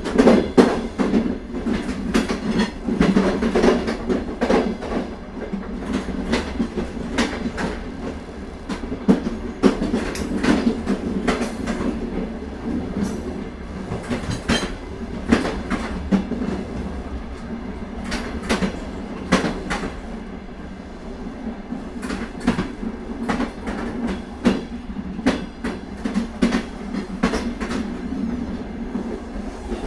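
Old Soviet train rolling along the track: a steady rumble of the carriage, with the clickety-clack of wheels knocking over the rail joints, often in quick pairs.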